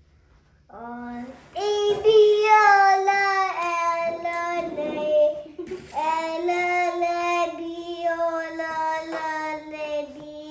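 A young child singing, holding two long, drawn-out notes, each sliding slightly lower as it is held.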